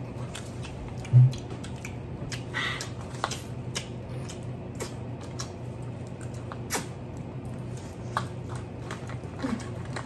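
Eating sounds of people at a table eating seafood and corn on the cob: chewing and scattered small clicks and crackles. There is a loud low thump about a second in, over a steady low hum.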